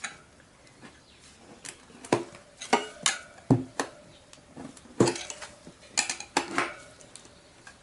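Steel tire levers clinking and clanking against the rim of a spoked motorcycle wheel as the old front tire is levered off its bead: about a dozen irregular metallic strikes, several ringing briefly.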